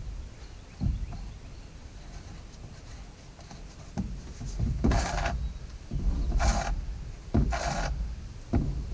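A new saw chain on an Oregon CS300 battery chainsaw rasps as it is pulled along the bar by hand while its tension is set. The chain is still stiff. After low handling noise, about four rasping strokes come in the second half, roughly one a second.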